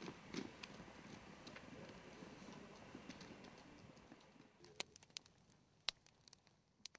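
Faint footsteps of a small group walking on pavement, fading away, then a few scattered sharp clicks in the last two seconds.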